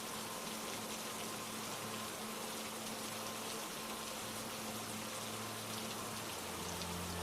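Steady rain falling, an even hiss, with soft held notes of calm ambient music underneath; a new lower note comes in near the end.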